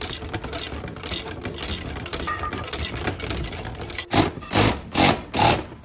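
Power tool driving in crash cage mounting bolts: a steady whirring run, then several short loud bursts near the end as the bolts snug down.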